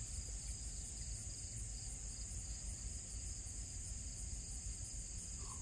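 Steady high-pitched drone of a summer insect chorus, with a low rumble underneath.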